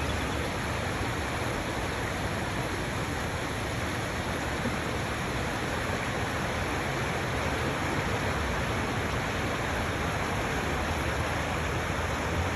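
Steady rushing noise of storm floodwater running through a flooded street.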